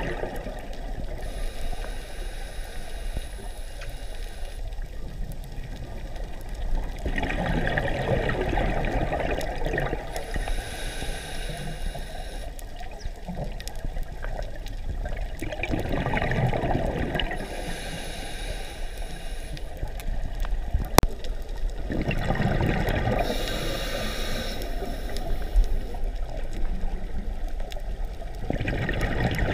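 Scuba diver breathing through a regulator underwater: a hiss on each inhale, then a gurgling rush of exhaled bubbles, four breaths in a slow, even rhythm. A single sharp click sounds about two-thirds of the way through.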